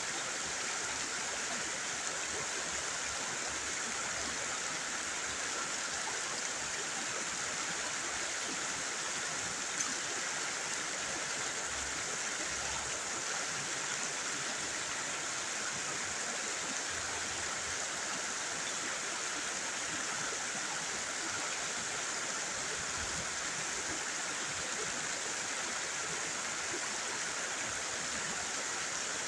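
Steady rush of flowing river water at a river mouth, with one faint tap about ten seconds in.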